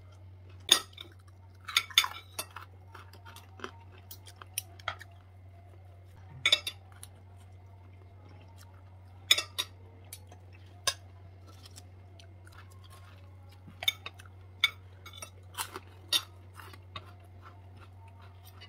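Metal spoons and forks clinking and scraping against a nonstick frying pan as fried rice is scooped out, in scattered sharp clicks, with a steady low hum underneath.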